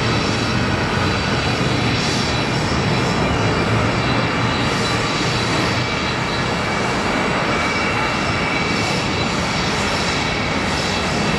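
Kawasaki C-1 transport's twin JT8D turbofan engines running at taxi power as it taxis: a steady jet whine of several high tones over a low rumble.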